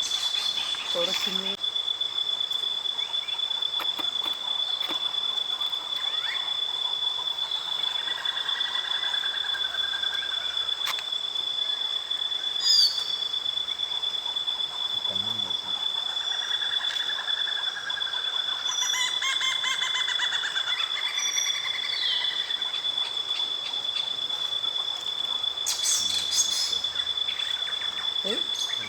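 Crickets trilling steadily at one high pitch, with birds calling over them in drawn-out, sliding calls, mostly around 8 to 10 seconds in and again from about 16 to 22 seconds. A short, sharp chirp stands out about 13 seconds in.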